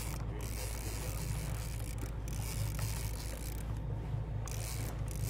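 Steady low drone of the fishing boat's engine running, under a constant hiss of wind and sea noise.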